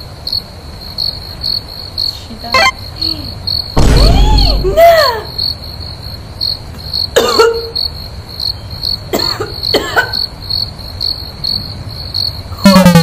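Crickets chirping, a steady high chirp repeating about two to three times a second. Louder gliding sounds break in, the loudest about four seconds in, and near the end comes a loud falling tone.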